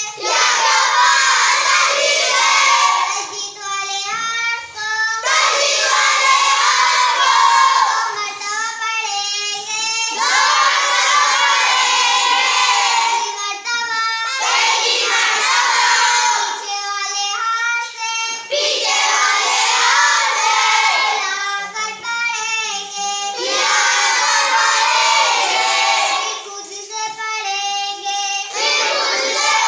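A girl chants Arabic Qur'anic words with doubled consonants (tashdeed) one at a time, and a group of children repeat each word together in a loud chant, in call and response several times over.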